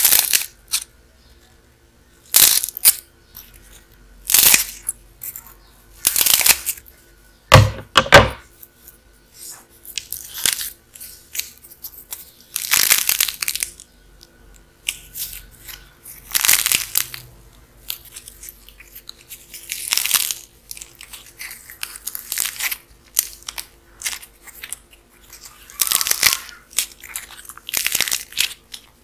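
Soft modelling clay with a dried crust being cut with scissors and then torn apart by hand, crackling and tearing in irregular bursts every second or two. Two louder crunches come close together about a quarter of the way in.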